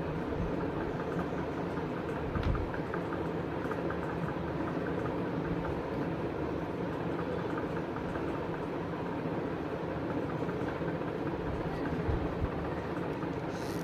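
Steady low rumbling hum of a machine-like background noise, with a couple of faint knocks about two seconds in and again near the end.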